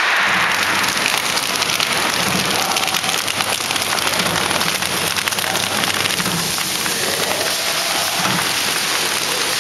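Horizontal flow-wrapping machine for bread running: a steady, dense mechanical noise with fine rapid ticking.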